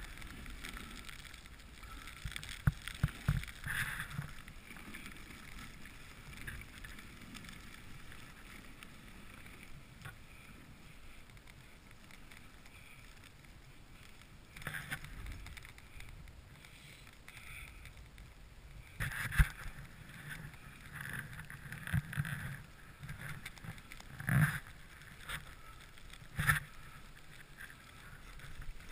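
Dog sled running over packed snow: a steady hiss of the sled and wind on the microphone, broken by several sharp knocks, the loudest about three seconds in and again about two-thirds through.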